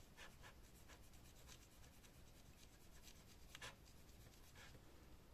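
Faint, scattered rubbing and light scratchy ticks of hands handling and wiping laptop parts, over quiet room tone.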